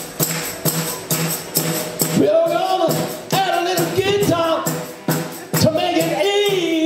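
Live rock band playing: drums keep a steady beat under bass and electric guitar. A melodic line with bending notes comes in about two seconds in.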